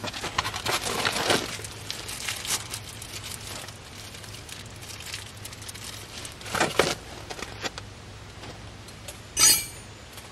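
Small metal parts and hand tools clinking and rattling while a small grease fitting is picked up and threaded in by hand. There is a flurry of clicks at the start, another partway through, and a single sharp clink near the end, which is the loudest.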